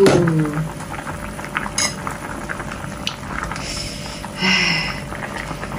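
Pot of chicken curry bubbling at a boil, with a sharp clink of the glass pot lid about two seconds in and a wooden spoon stirring the thick gravy.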